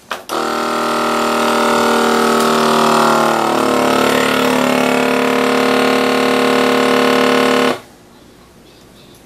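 KitchenAid vacuum sealer's pump running steadily as it draws the air out of a bag of minced pork. Its tone changes a few seconds in as the vacuum builds, and it cuts off suddenly near the end.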